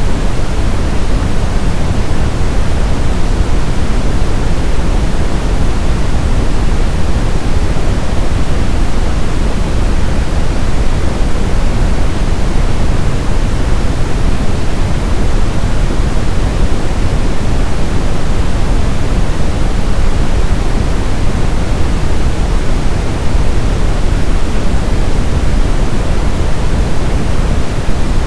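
Brown noise: a steady, unchanging hiss-like rumble, strongest in the bass and falling off steadily toward the treble.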